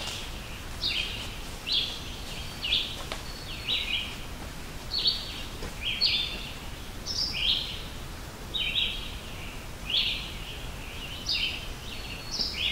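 A bird calling over and over, short buzzy chirps repeated about once a second, some notes pitched higher than the rest.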